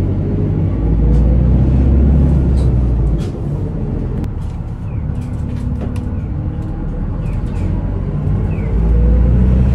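Bus engine and road rumble heard from inside the passenger cabin of a moving city bus, with scattered rattling clicks. The engine note rises and gets louder twice, about a second in and again near the end, as the bus speeds up.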